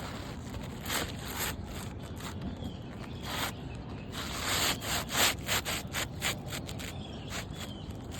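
Asphalt roof shingles scraping and rustling as a new shingle is slid and worked into place under the course above, in a run of irregular short scrapes.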